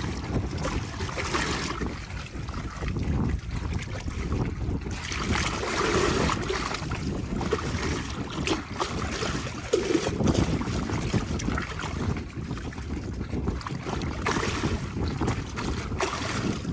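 Wind blowing across the microphone, a low rumbling noise that rises and eases in gusts every few seconds.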